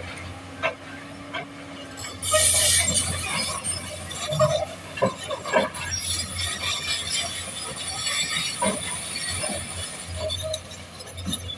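Excavator engine running with a steady low hum, with scattered metallic clanks and knocks and a brief loud hiss about two seconds in.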